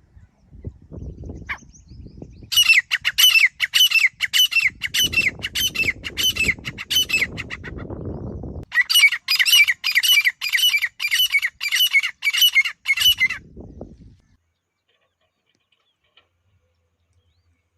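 Grey francolin (desi teetar) calling: a fast run of loud, sharp repeated notes, about two a second, broken once briefly partway through. Low rumbling noise lies under the first half, and the calling stops a few seconds before the end.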